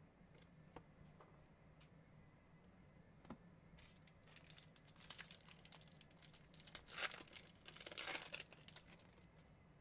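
Foil wrapper of a 2021 Bowman baseball card pack being torn open and crinkled, in several loud crackly bursts over the second half, after a few faint clicks of cards being handled.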